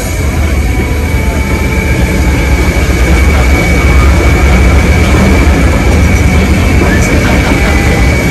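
Railway passenger coaches rolling past at close range: a loud, steady rumble of wheels on rail with a thin, steady high-pitched whine over it.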